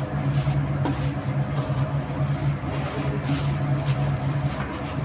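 A steady low mechanical hum, like a motor running, with faint soft rustling as grated radish is mixed with spices by hand in a steel bowl.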